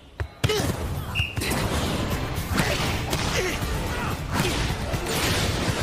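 Anime sound effects of a volleyball rally: the ball being struck and thudding over steady crowd noise in a gym. The crowd noise starts suddenly about half a second in.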